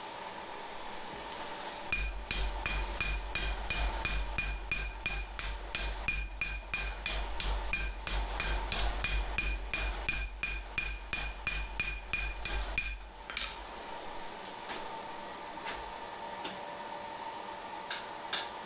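Hand hammer striking hot steel bar on an anvil in a fast, steady run of about three to four blows a second, each blow ringing, for about eleven seconds, then stopping; a few light taps follow. A steady hum runs underneath.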